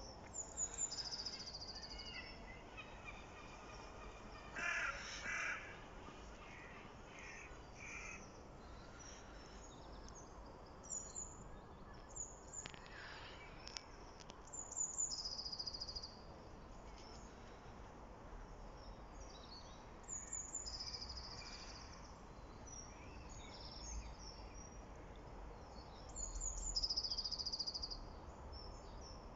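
Outdoor birdsong: short, high chirping phrases every few seconds. A louder run of pulsed calls comes around five seconds in, over a faint steady background hum.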